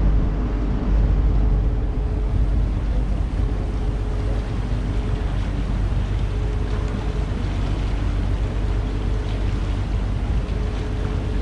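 Paddle steamer under way: a steady low rumble with water rushing past the bow and a faint steady hum.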